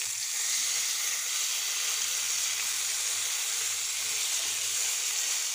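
Stuffed brinjals frying in mustard oil in a kadhai: the hot oil gives a steady sizzle.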